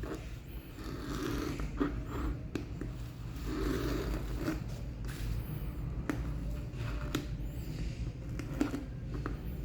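Packaging being handled and opened by hand: rustling and scraping of box and wrapping, broken by several sharp clicks.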